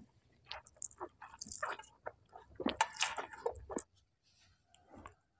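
Close-miked slurping and chewing of a mouthful of rice noodles: an irregular run of wet mouth smacks and clicks that stops about four seconds in.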